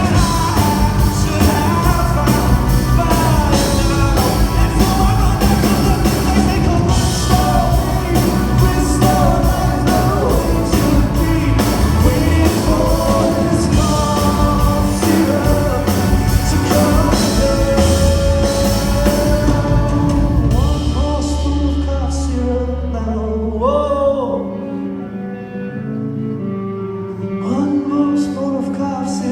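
Live rock performance of a song: male lead vocal over a full band with drums and guitar. About twenty seconds in the drums stop and the music drops to a softer passage of voice and accompaniment.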